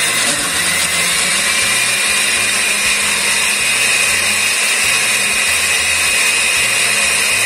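Oster countertop blender with a glass jar running at a steady speed, blending avocado, banana, milk and honey into a thick drink: a loud, even motor whine with the churning of the liquid, its pitch rising a little in the first second, then holding steady.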